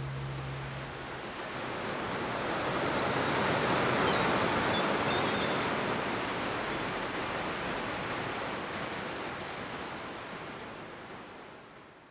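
Ocean surf washing: a steady rush that swells to its loudest about four seconds in, then slowly fades away.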